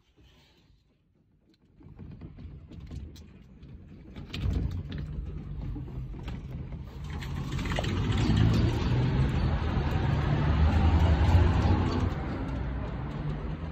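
Apartment shaking in a strong earthquake: a low rumble with window panes and household objects rattling and clattering. It starts about two seconds in, grows much louder and eases a little near the end.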